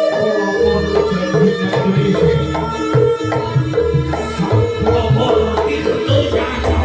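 Live band playing an instrumental passage through a PA: hand drums beat a quick pattern over held melody notes and a deep bass line.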